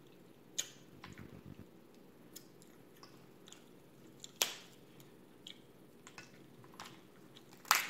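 Cooked crab leg shells cracked and snapped apart by hand, a scatter of short sharp cracks and ticks, the loudest about four and a half seconds in and another just before the end, with soft eating sounds between.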